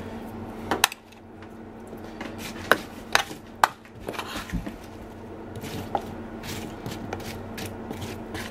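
A utensil clinking and scraping against a metal baking tray while cubed butternut squash is tossed in it, a handful of sharp clicks and knocks over a steady low hum.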